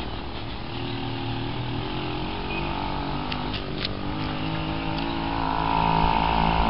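Small gasoline engine of a motorized bicycle running steadily as it rides toward the listener, growing louder over the last couple of seconds.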